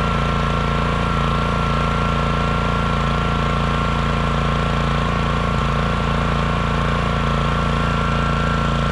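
WEN GN400i inverter generator's four-stroke engine running steadily in normal (non-eco) mode, with an even engine drone and a steady high whine over it.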